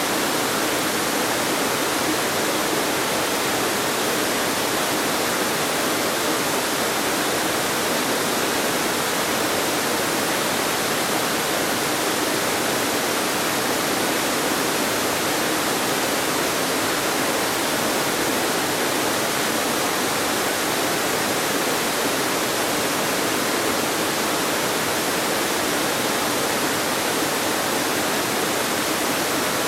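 Waterfall cascading over rock ledges: a steady, unbroken rush of falling water heard close up from the foot of the falls.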